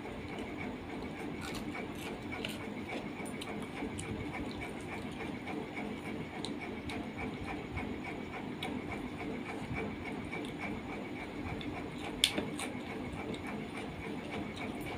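Eating by hand from a steel plate: rice and curry being mixed with the fingers and chewed, with scattered small clicks and one sharper click about twelve seconds in, over steady background noise.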